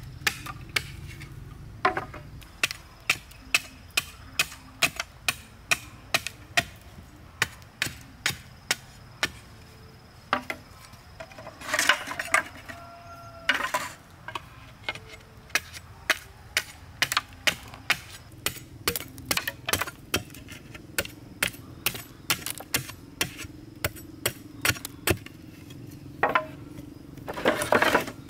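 Machete blade striking bamboo against a wooden chopping stump in steady repeated chops, about two a second. Twice, about halfway through and near the end, there is a longer, louder rasping burst.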